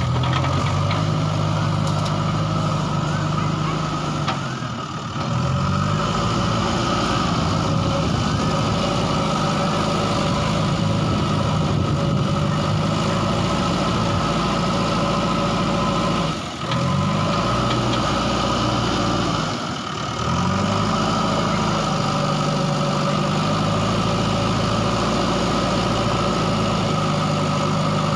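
JCB backhoe loader's diesel engine running steadily at working revs, its note sagging briefly and picking back up three times.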